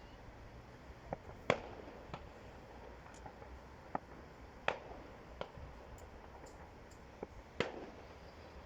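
Distant fireworks going off: scattered sharp bangs, about eight of them, the three loudest about three seconds apart, each with a short echo.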